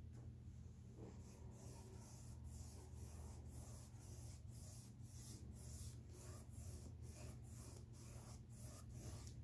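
Faint, quick swishing of a 1-inch flat paintbrush stroking acrylic paint back and forth across a stretched canvas, about three strokes a second, starting about a second in, over a low steady hum.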